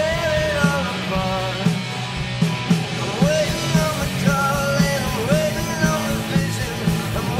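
Rock band playing live: a male voice singing over electric guitar, bass and drums, with a steady beat.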